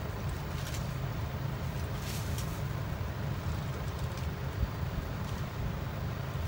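Steady low background rumble, with faint rasps of masking tape being pulled from the roll, the clearest about two seconds in.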